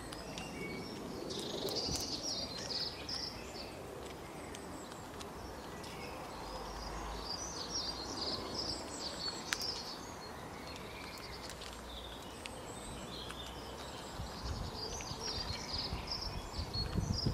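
Wild birds chirping in three bouts of short, high, rapid notes, over a steady hiss of outdoor background noise.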